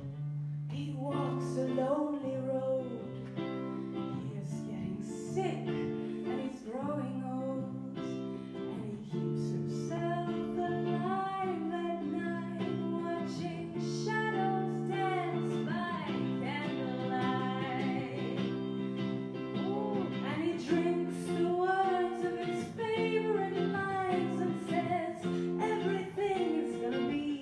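A woman singing live into a microphone, accompanied by a man playing a white electric guitar; sustained guitar chords carry under a wavering, held vocal line.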